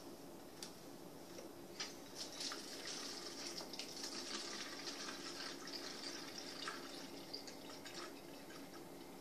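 Water from a kitchen faucet running faintly into a plastic water bottle as it is filled. The flow starts about two seconds in and tails off near the end, with a few light knocks of the plastic bottle.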